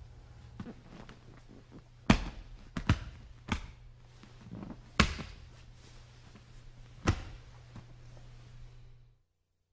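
Bodies and hands thudding and slapping on a grappling mat as two jiu-jitsu players roll, with about five sharp thuds over a low steady hum.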